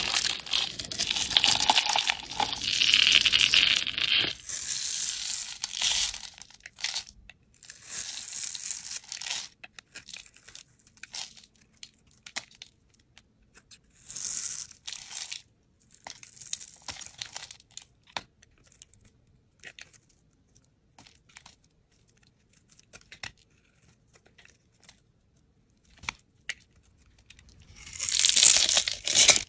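A box-cutter blade cutting into bars of soap, some scored into grids: bursts of crisp scraping and crunching as shavings and small cubes break off and fall. The sound is loudest in the first few seconds and again near the end, with sparser cuts and faint clicks in between.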